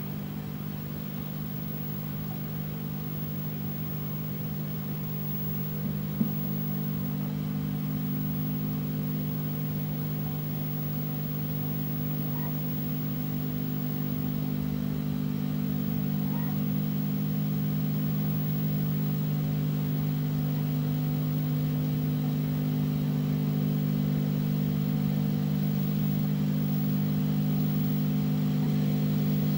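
Steady low electrical hum from the CRT television's sound during a silent stretch of the VHS tape, growing slightly louder over time, with a single faint click about six seconds in.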